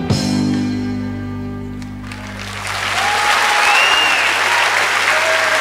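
A rock band's final chord ringing out and fading over about two seconds, followed by audience applause that swells and carries on, with a few whistles over it.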